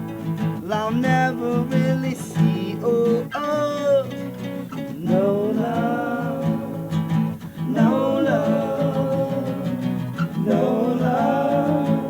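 A band playing a song live: strummed acoustic guitar chords with a sung melody returning in phrases every few seconds.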